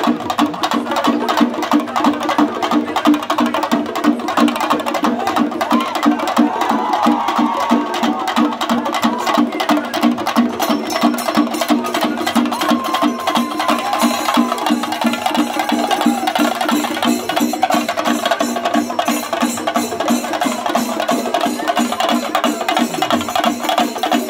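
Chenda melam: an ensemble of Kerala chenda drums beaten with sticks in a fast, steady rhythm that carries on without a break.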